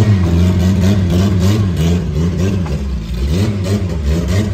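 Old VW Passat's engine running under light throttle as it is driven up a ramp onto a car trailer, the revs rising and falling over and over.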